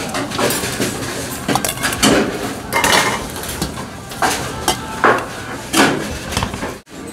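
Stainless steel bowls and a wire mesh noodle strainer clanking against the rim of a large pot of boiling water as noodles are scooped out and tipped into a bowl: a series of separate metal clanks, about one or two a second.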